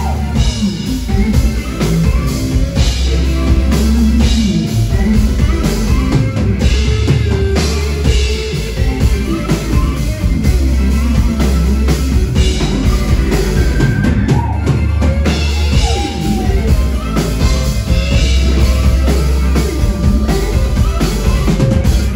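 Live band playing a pop-rock song: drum kit with a steady beat and electric guitar over a heavy low end, with a woman singing at times.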